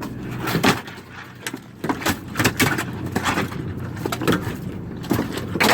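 Irregular sharp knocks and clatter, two or three a second, over a steady low engine hum: deck noise on a halibut longliner hauling gear.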